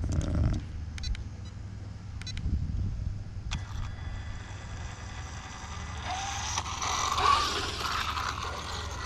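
Electric brushless motor of an ARRMA Limitless RC car whining as the car drives back in. The sound starts about three seconds in, gets louder and rises in pitch over the last few seconds as the car nears. Low wind rumble on the microphone throughout.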